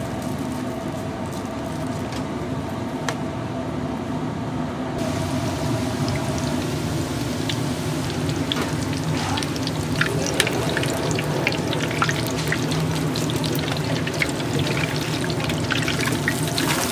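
Food deep-frying in hot oil: a steady sizzle with scattered crackling pops that grow brighter and more frequent from about five seconds in.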